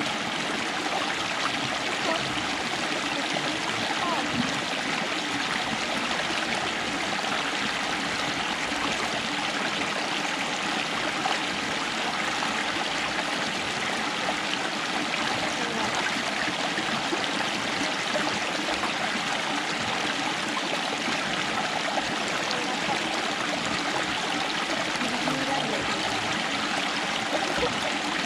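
Steady rush and splash of hot-spring water from a natural source, pouring down a small rock fall and churning into a milky pool.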